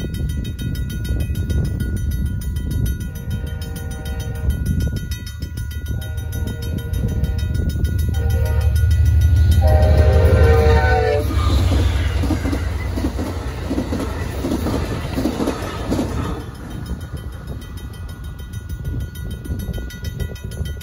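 A fast-ringing RACO mechanical crossing bell clangs steadily while an Amtrak San Joaquin train led by an F59PHI diesel locomotive sounds its horn in the long-long-short-long grade-crossing pattern. The train then rumbles through the crossing, loudest about ten seconds in, and its passing cars fade away after that.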